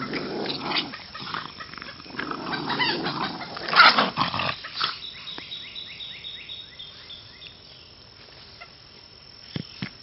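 Two Boston Terriers growling as they tug at a rope toy, with one loud sharp burst about four seconds in. The growling stops about halfway through, and only faint, rhythmic high chirping is left, about three chirps a second.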